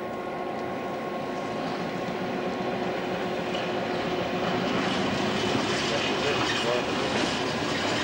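SNCB class 53 diesel locomotive's engine running with a steady note, growing louder from about halfway through.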